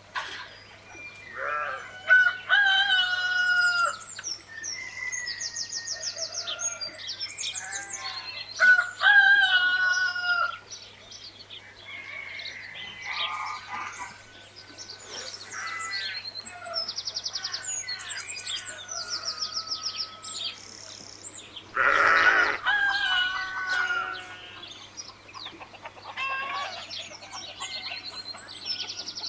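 Farmyard chickens: several roosters crowing in long, pitched calls, with clucking and high, rapid chirps of small birds in between.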